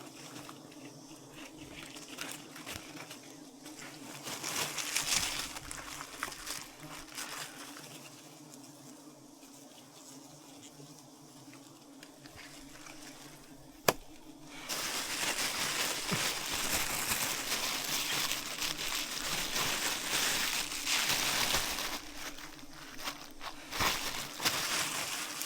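Swarm of wild honeybees buzzing around their hive as a steady hum. A sharp click comes about 14 seconds in, and a louder crackling rustle joins from about 15 seconds on.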